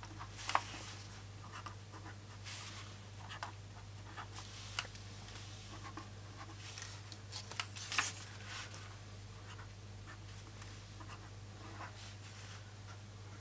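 Felt-tip pen writing numbers on planner paper: short, faint scratchy strokes and taps, with a steady low hum underneath.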